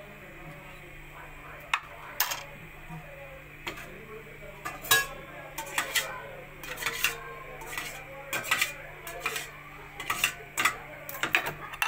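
A spoon clinking and scraping against a glass dish and a ceramic bowl in quick, irregular clinks as jelly is spooned onto custard.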